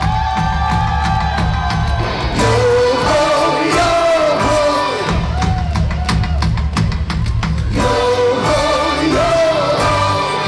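Loud upbeat rock show music with singing over a steady drum and bass beat.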